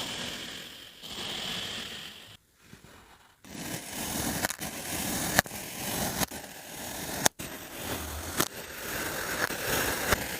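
Kinetic sand being cut and scraped: a gritty scraping, a short pause about two and a half seconds in, then denser crunching strokes with several sharp clicks.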